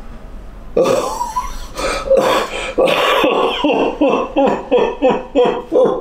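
A man sobbing: irregular gasps and catches of breath that settle into short, pitched sobs about three a second.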